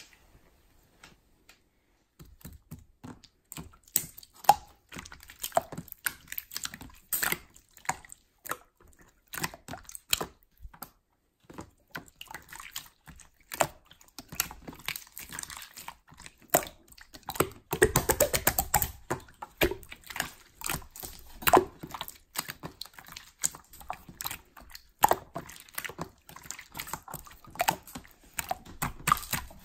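Slime being pressed, poked and stretched by hand, giving irregular clicking and popping sounds, with a dense run of rapid crackling clicks about two thirds of the way through.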